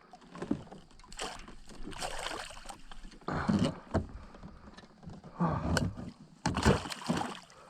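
Kayak on the water, with about five uneven swishing splashes a second or so apart, typical of paddle strokes moving the kayak along.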